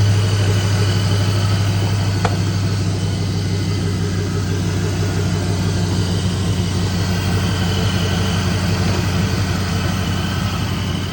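V8 engine swapped into a Chevy Silverado idling steadily, running now that the VATS anti-theft lockout has been deleted from the engine computer. A single light click comes about two seconds in.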